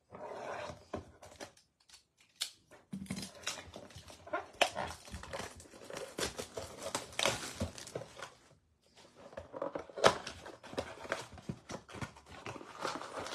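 Plastic wrap and cardboard of a trading-card blaster box being torn open and handled: irregular crinkling and rustling with many small clicks, with a short lull about nine seconds in.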